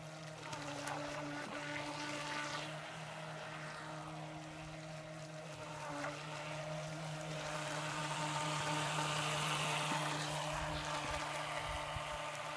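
Radio-controlled model boats running fast on a pond: a steady motor whine of several held tones with a hiss of water, swelling louder about eight seconds in as a boat comes close, then easing off.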